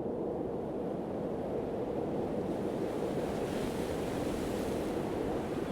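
Sea waves and surf with wind: a steady rushing noise that grows hissier about three seconds in.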